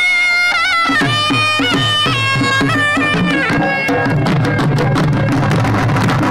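Folk band music: a shehnai-type reed pipe plays a wavering melody over large kettle drums and a barrel drum. The drums come in about a second in, and near the middle the pipe drops out while the drumming turns fast and dense.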